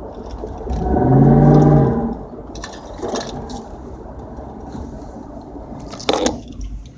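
2004 Dodge Durango's 5.7 L Hemi V8 blipped once: it rises in pitch and grows loud about a second in, then drops back to idle. A few sharp clicks or rattles follow, the loudest near the end; the owner reports a rattle when stomping on the gas and letting off.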